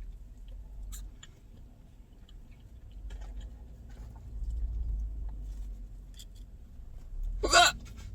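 A girl's single loud hiccup near the end, sudden and short, after a few faint clicks over a low rumble.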